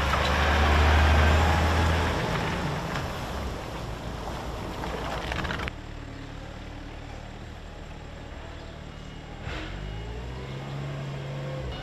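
A heavy truck's diesel engine and tyres as a loaded flatbed truck drives past, loudest about a second in. Partway through the sound changes abruptly to a quieter yard, where a Toyota forklift's engine runs and rises in pitch near the end.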